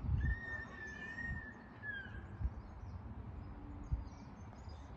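A single long whistled bird note, held steady for almost two seconds and dipping at its end, over a low rumble of wind and handling on the microphone with a few soft thumps.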